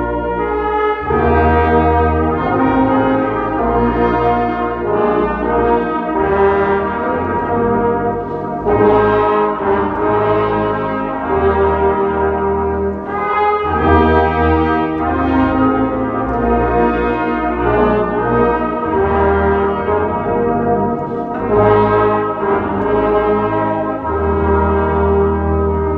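Brass ensemble playing slow, sustained chords over a deep bass line, the harmony changing every second or two like a hymn or chorale.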